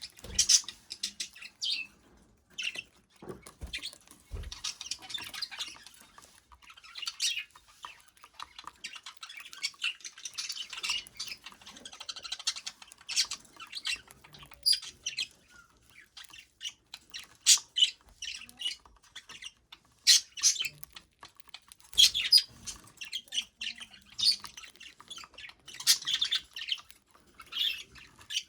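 Pet budgerigar chattering and chirping, a warbling stretch mixed with many short, sharp chirps and squawks. A few soft low knocks come in about three to four seconds in.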